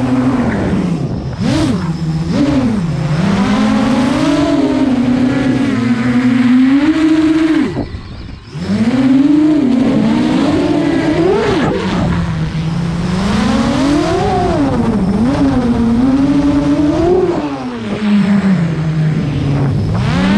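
FPV quadcopter's Flash Hobby motors spinning 8-inch props, heard from the onboard camera: a whine whose pitch rises and falls constantly with the throttle. It drops away briefly about eight seconds in, then winds back up.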